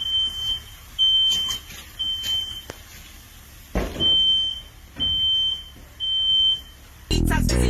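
Smoke alarm sounding: a single high beep, three times at about one a second, a pause, then three more. This is the temporal-three alarm pattern that signals smoke or fire.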